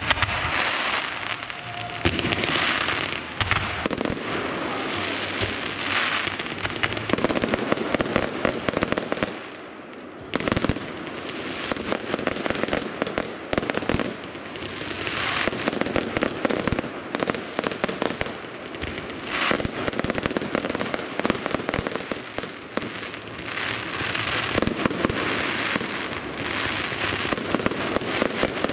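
Fireworks display: aerial shells bursting in quick succession with sharp bangs over a dense crackling fizz, easing briefly about ten seconds in before building again.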